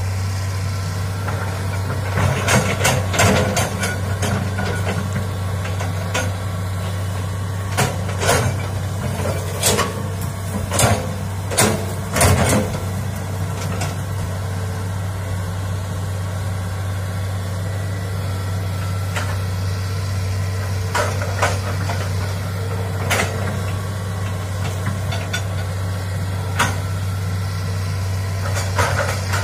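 Hitachi hydraulic excavator's diesel engine running steadily as the machine works, with sharp cracks and knocks coming in clusters, most in the first half, as it tears into trees and brush.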